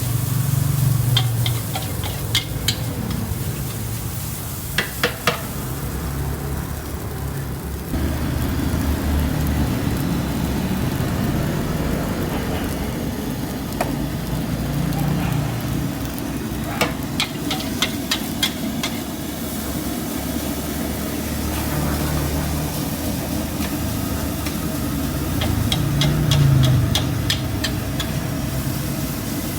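Fried rice being cooked in a wok: a metal spatula strikes and scrapes the pan in quick runs of clangs, over steady sizzling that thickens about a quarter of the way in.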